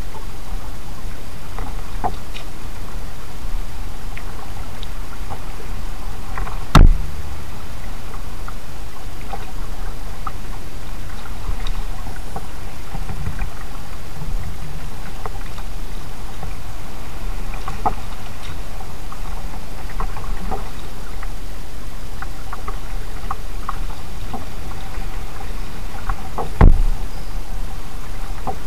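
Kayak paddling: water dripping and splashing from the paddle in small scattered ticks over a steady low noise, with two loud knocks on the kayak, about seven seconds in and near the end.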